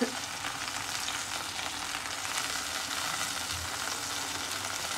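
Garlic, chillies and sauce sizzling steadily in hot oil in a ridged grill pan, a continuous fine crackle.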